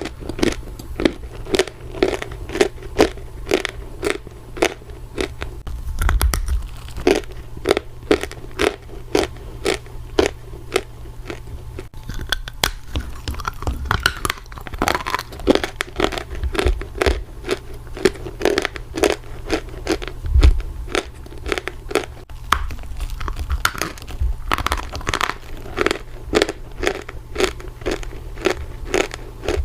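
Close-miked chewing of dry Turkistan edible clay: crisp crunches about twice a second as the bites are ground down, with a few low thumps.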